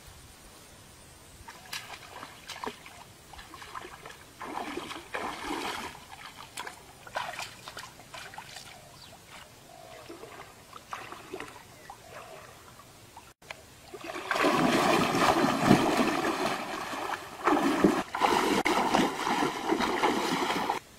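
Shallow water splashing as a person wades through it and strikes at the surface with a long stick: light, scattered splashes at first, then about seven seconds of loud, continuous splashing near the end.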